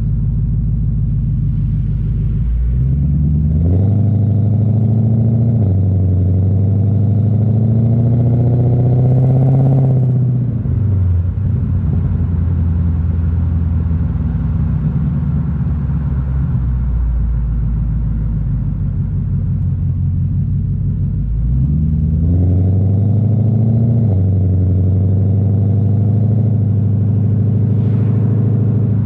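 Infiniti Q45's 4.5-litre VK45DE V8 under acceleration. The revs climb, drop briefly at an upshift and climb again, then fall off at around ten seconds. The engine runs steadily for a while and pulls up again from about twenty-two seconds in, over road noise.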